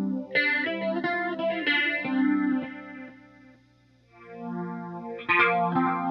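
Relish Phantom Jane electric guitar played through a GTC REVPAD touch-swell preset: strummed chords with wavering pitch. The sound fades away a little past halfway, then swells back in about four seconds in, with a fresh strum soon after.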